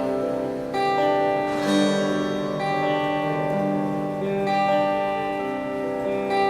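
Electric guitar (PRS SE Custom, neck pickup with 85/15 S humbucker) played through a Mesa Rectoverb 25 amp: chords strummed and left to ring, a new chord every second or two.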